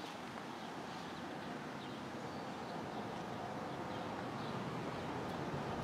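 Outdoor ambience: a steady rushing noise that grows slowly louder, with a few faint, short bird chirps.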